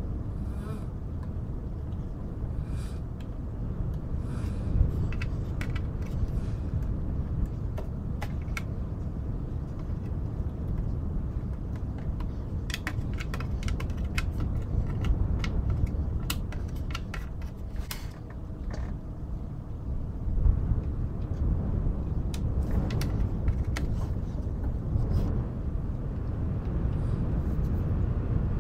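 Jigsaw puzzle pieces being sorted and handled, giving scattered light clicks and taps that come thickest in the middle. Underneath is a steady low rumble of layered wind and white noise, the loudest sound throughout.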